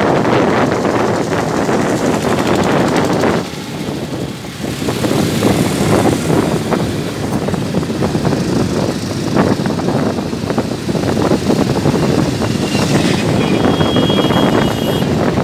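Wind rushing over the microphone of a moving vehicle, mixed with road traffic and the engines of motorcycles running along the road. A brief steady high tone, like a horn, sounds near the end.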